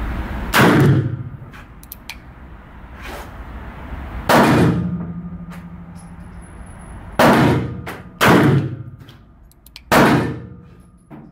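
Spanish 1892 regulation revolver fired five times, full-load .32-20 Winchester, each shot echoing in the range. The first two are a few seconds apart, the last three come quicker, about a second apart. Faint clicks fall between the shots.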